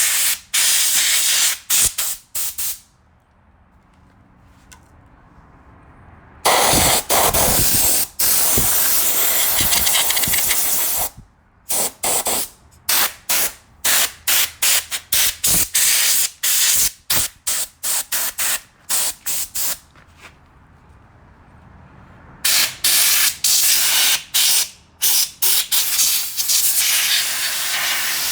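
Compressed air from a compressor's blow nozzle hissing in many short, trigger-pulsed blasts and a few longer ones, blowing dust out of a desk fan. Twice the blasts stop for a few seconds.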